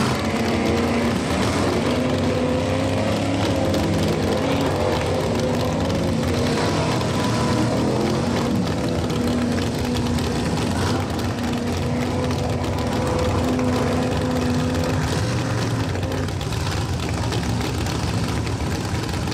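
Mega mud truck's engine running hard as it plows through deep swamp mud, its note held at a fairly steady pitch with small rises and dips, over the rush and splash of churned mud and water.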